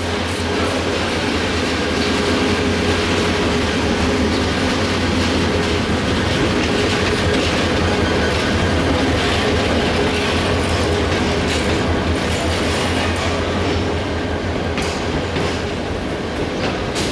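Diesel-electric locomotive running as it passes close at slow speed, then its old vacuum-braked passenger coaches rolling by, their wheels clattering over the rail joints, with a steady low drone.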